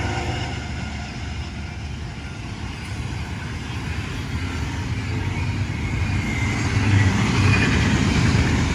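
Diesel freight train rumble and rail noise, easing slightly and then building louder over the last few seconds, right after a horn.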